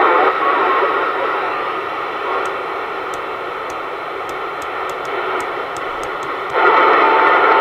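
Galaxy DX 33 HML CB radio receiving through its speaker: a steady hiss of band static while the rotary channel selector is turned, its detents clicking about twelve times from a couple of seconds in. Near the end the static jumps louder with a steady tone in it as a new channel comes up.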